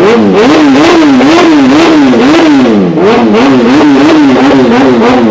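Kawasaki ZX-10R's inline-four engine revved hard again and again in quick throttle blips, about two a second, the pitch climbing and falling with each blip; very loud.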